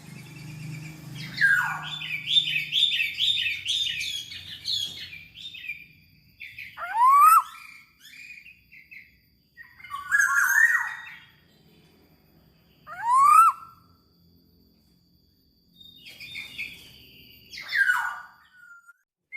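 Black-naped oriole (kepodang) singing: a quick run of repeated chirping notes for a few seconds, then four separate loud, rising whistled calls spaced a few seconds apart.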